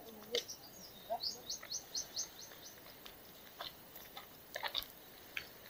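A small bird calling: a quick run of about eight short, high chirps in the first half, followed by a few scattered single chirps.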